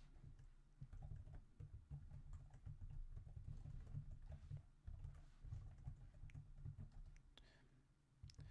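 Faint typing on a computer keyboard: a steady run of keystrokes with dull low thuds, tailing off about a second before the end.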